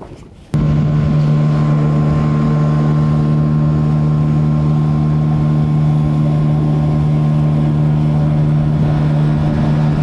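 Boat's outboard motor running at a steady cruising speed as the boat travels: a loud, even hum that does not change pitch. It comes in abruptly about half a second in.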